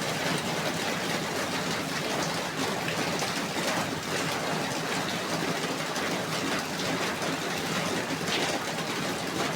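Steady heavy rain falling, a dense even hiss of drops on surfaces.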